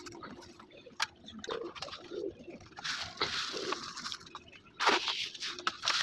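Fancy pigeons cooing in a few short, low calls, with bursts of grain rattling as it is poured from a paper bag into their feed cups.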